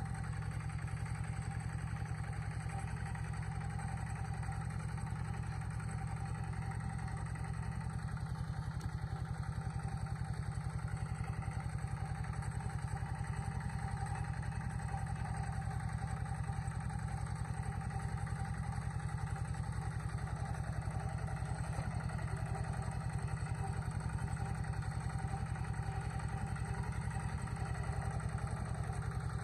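A motor vehicle's engine running steadily at an even speed, with a low, continuous drone.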